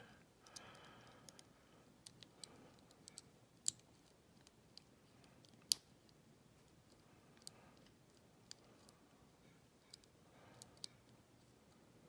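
Faint, irregular metallic clicks and ticks of a lock pick working the four pin tumblers of a Master Lock gun lock, with a tension wrench in the bottom of the keyway. One sharper click comes a little before halfway.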